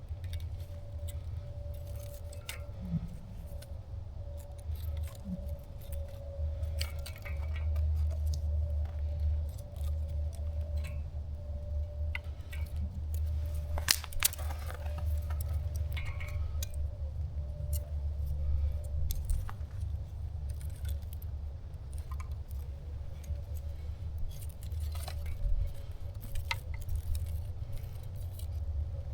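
Newly lit campfire crackling with scattered sharp pops, one loud pop about halfway through, over a continuous low rumble.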